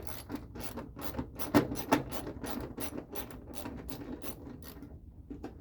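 Socket ratchet wrench clicking about four times a second as it turns an 8 mm bolt holding a taillight housing. It stops near the end.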